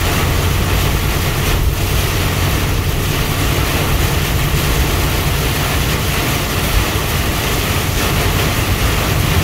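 Heavy rain pelting a truck's windshield and cab in a thunderstorm downpour, heard from inside the moving cab over a steady low hum of engine and road noise.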